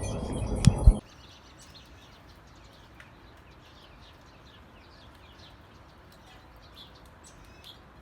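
A clatter and a sharp thump, then an abrupt cut to faint, rapid chirping of small birds that goes on to the end.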